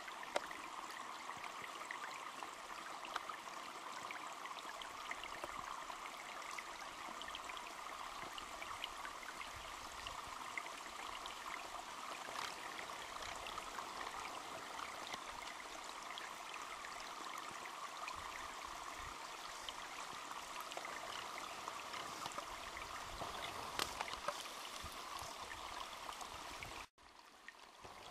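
Steady rushing noise with many small clicks and crackles through it, cutting out abruptly for a moment near the end.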